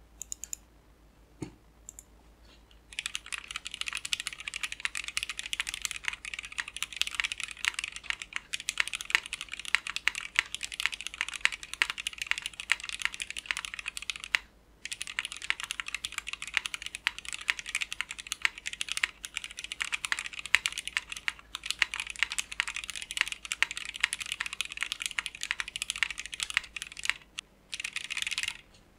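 Continuous fast typing on an Ozma60 top-mount custom mechanical keyboard fitted with Original Aspiration switches lubed with Krytox 205g0, its metal case filled with foam. The clicking starts about three seconds in, pauses briefly about halfway through, and pauses again near the end.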